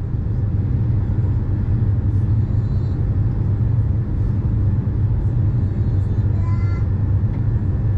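Steady low rumble of a Boeing 747-8's engines and airflow, heard inside the passenger cabin.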